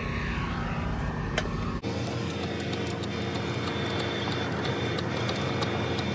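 Steady drone of an idling vehicle engine, changing abruptly about two seconds in, with faint light clicks over it afterwards.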